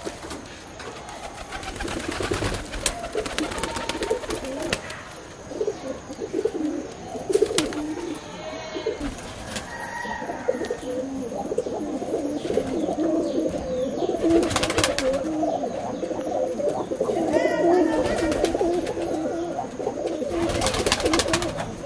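Several excited male domestic pigeons cooing continuously, their overlapping coos rising and falling. Several short rustling bursts cut in, the loudest about two-thirds of the way through and near the end.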